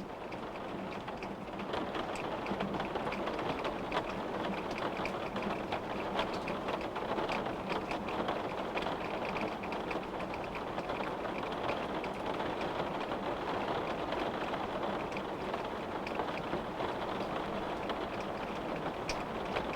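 Rain hitting a window pane: a steady hiss of rainfall with many small, sharp drop taps scattered throughout.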